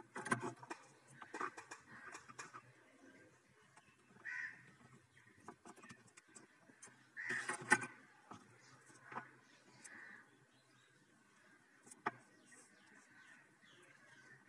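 Adhesive tape being pulled from a roll and pressed down by hand: faint crackles and handling clicks. Several short calls, like a bird's, come through about every three seconds, the loudest around the middle.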